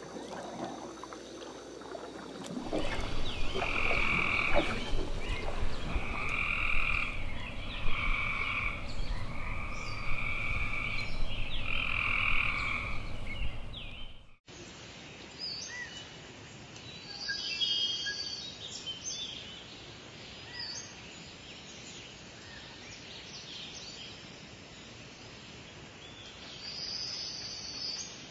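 A frog calling in about five one-second bouts, each a rasping two-pitched call, over a low rumble. After an abrupt cut about halfway through, quieter rainforest ambience with a few faint high chirps.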